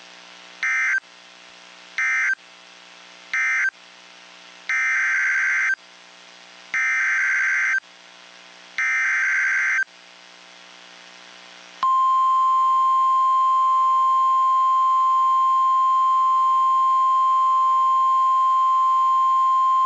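Emergency Alert System tones from a NOAA Weather Radio broadcast. Three short bursts of buzzy digital data end the first warning. About four seconds in, three longer data bursts of about a second each open the next warning. Near the middle a single steady 1050 Hz weather-radio attention tone starts and holds for about nine seconds.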